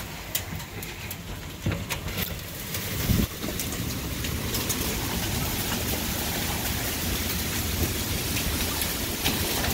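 Hail ticking against a window pane in sharp scattered clicks, then a thump about three seconds in. After it comes the louder, steady hiss of a heavy rain and hail downpour from a thunderstorm.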